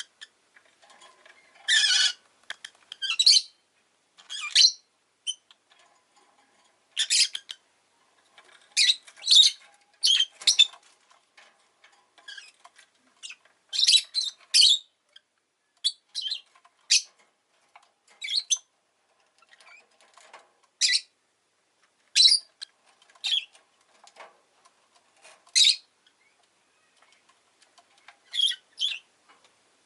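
Rosy-faced lovebird giving short, sharp, high-pitched chirps, singly or in quick pairs, at irregular gaps throughout.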